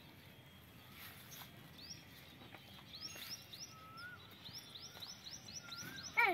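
Birds chirping faintly: a series of short, high, rising chirps that come thicker toward the middle and later part, with a few softer whistles among them. Near the end, a brief, loud, high-pitched voice call falls in pitch.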